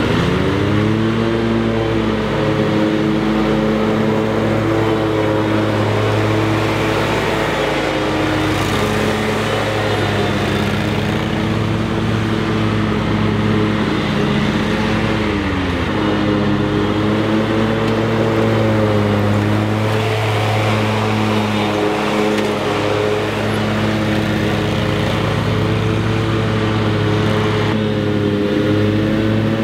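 Zero-turn mower engine running steadily at mowing speed. Its pitch sags briefly and recovers twice, right at the start and about halfway through.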